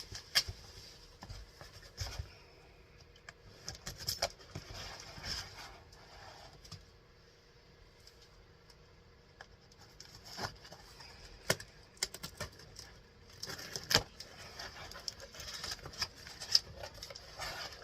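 Packaging and items being handled while a box is unpacked: scattered rustling, clicks and knocks, with a quieter stretch midway and a few sharper knocks later on.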